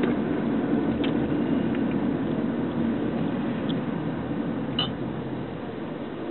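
Car engine and road noise heard from inside the cabin, a steady rumble that grows quieter over the last few seconds as the car slows. A faint click about a second in and another about five seconds in.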